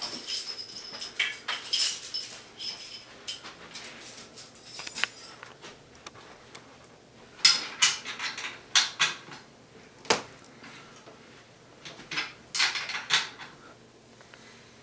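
Metal clinking and rattling of bicycle parts handled as a wheel is fitted to a bike frame. There is a run of quick rattles in the first five seconds, then separate sharp clanks about halfway through, and another burst of rattling near the end.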